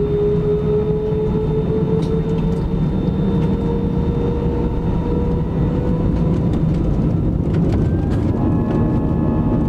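Airbus A320's IAE V2500 turbofan engines heard inside the cabin over the wing: a steady rumble under a whine that rises slowly in pitch. New higher tones come in about eight seconds in.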